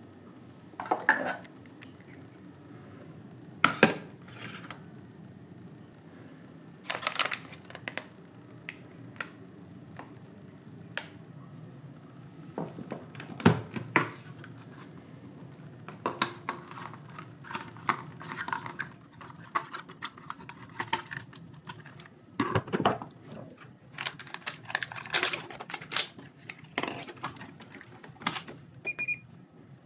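Ceramic cups, glassware and a coffee capsule being handled, with scattered clinks, clicks and knocks, and the lid of a capsule coffee machine being lifted and pressed shut over a capsule. A short electronic beep sounds near the end.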